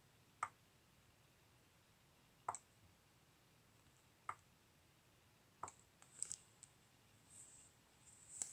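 Sharp single clicks from a computer being operated, about two seconds apart, then a quick cluster of clicks and faint rustling near the end. Otherwise near silence.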